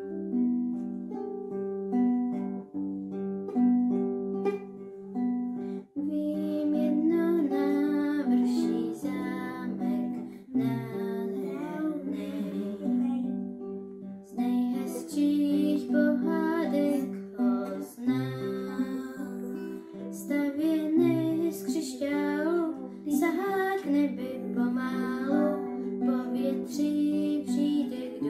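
Acoustic guitars playing a picked accompaniment; from about six seconds in, a voice sings over them.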